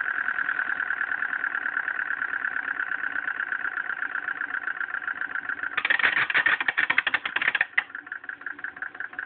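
Ray Foster 12-inch dental grinder running with a steady high whine. About six seconds in, a rapid rattling joins it for nearly two seconds; then the whine goes on, quieter.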